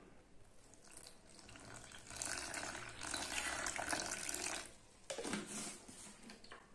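Milk poured in a thin stream from a bottle into a plastic mixing bowl of flour and egg: a steady splashing trickle that grows louder about two seconds in and stops a couple of seconds before the end, followed by a few light knocks.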